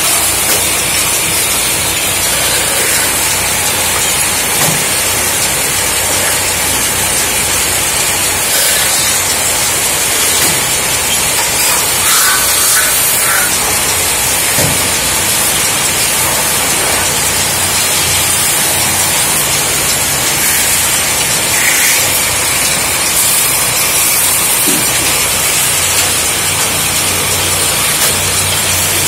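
A belt-driven metal-spinning lathe running, a hand-held spinning tool pressed against an aluminium blank as it is formed into a cooking pot: a steady loud hiss over a low motor hum, with a few brief squeals from the tool on the metal.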